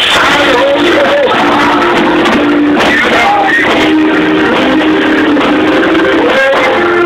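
Live organ and drum kit playing together: the organ holds sustained chords under drum and cymbal strokes, with a man's singing voice over them.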